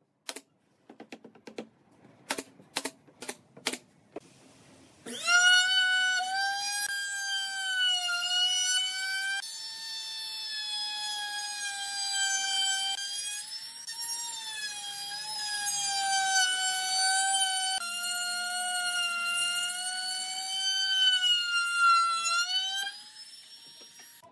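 A few sharp clicks, then an electric trim router running with a high, steady whine that wavers slightly in pitch as it cuts along the edge of a pine board. It stops about a second before the end.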